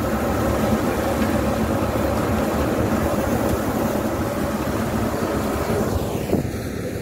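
Tractor-driven drum thresher running steadily while threshing millet, a constant dense mechanical drone of the tractor engine and the spinning threshing drum. A single brief knock comes about six seconds in.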